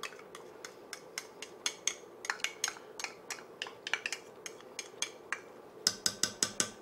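Metal spoon clinking and scraping against a small ceramic ramekin while scooping out minced garlic, a run of sharp light clicks a few per second. Near the end come quicker, louder taps as the spoon knocks garlic off against the pot.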